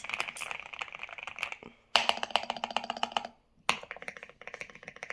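Fast typing on a custom AJAZZ AK820 mechanical keyboard fitted with Durock Milky Yellow switches, a dense run of key clacks. It comes in three short stretches, breaking off briefly twice.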